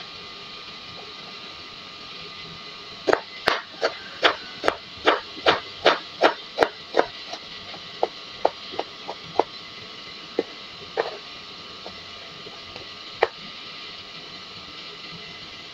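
Kitchen knife cutting carrot into matchstick strips on a plastic cutting board: a quick run of about a dozen cuts, roughly three a second, starting about three seconds in, then fainter, scattered cuts. A steady hiss lies underneath.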